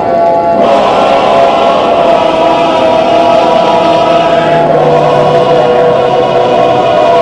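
A loud, dense drone of many sustained tones layered together, sounding like a choir, with a brighter layer coming in under a second in and a lower tone joining about two-thirds of the way through.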